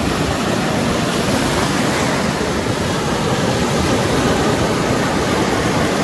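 Sea surf washing onto a sandy beach, a steady rushing noise.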